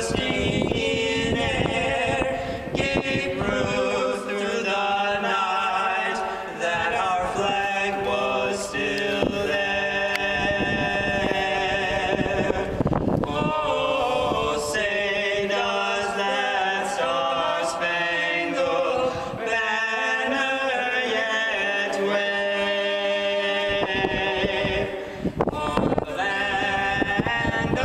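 A group of voices singing a slow song together, choir-like, with sustained notes.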